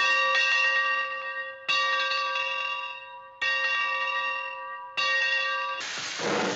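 A bell struck four times, about a second and a half apart, each stroke ringing with several steady tones that fade before the next. Near the end a loud hiss starts.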